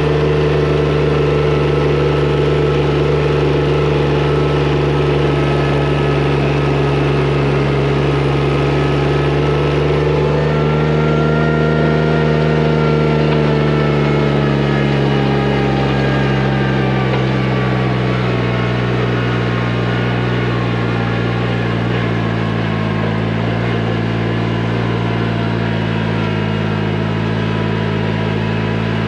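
John Deere 655 compact diesel tractor running steadily as it tows a weighted roller, its engine pitch shifting slightly a couple of times.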